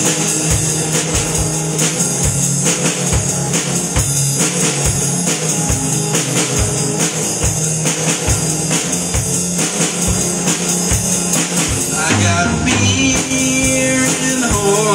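Live rock band instrumental: a distorted electric guitar over a Peavey drum kit, the kick drum keeping a steady beat of about two strikes a second with cymbals on top.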